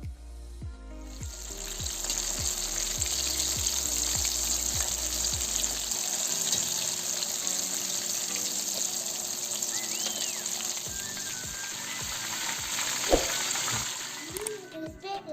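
Breaded chicken wings frying in hot oil, a loud steady sizzle that starts about a second in and dies away near the end.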